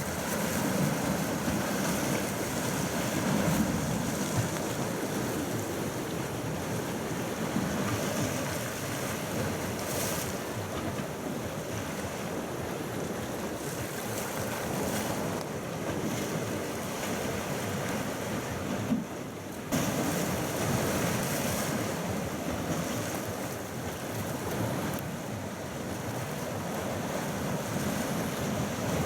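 Small waves washing on the shore of a calm sea, with wind buffeting the microphone.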